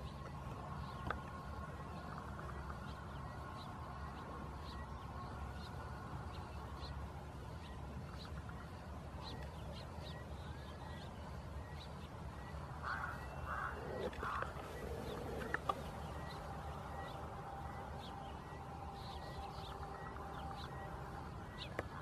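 Faint animal or bird calls over a steady low hum, with a cluster of louder calls about 13 to 15 seconds in.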